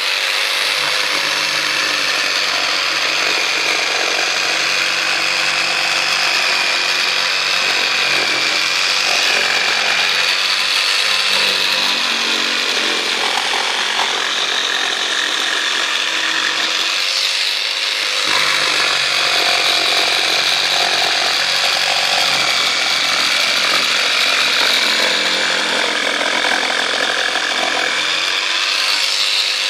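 Corded jigsaw running and sawing curves into a 25 mm spruce board, a steady high motor whine with the rasp of the blade through the wood, easing briefly about halfway through. It runs at full speed with no loss of power.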